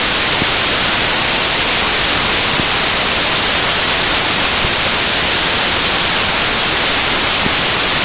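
Loud, steady static hiss, an even rush of white noise strongest in the high end, with nothing else heard in it.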